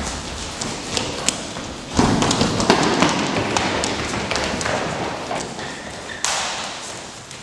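Dancers' shoes tapping, thudding and scuffing on a hard floor in a large, echoing room. About two seconds in a louder burst of scuffing and stamping begins, then slowly dies away.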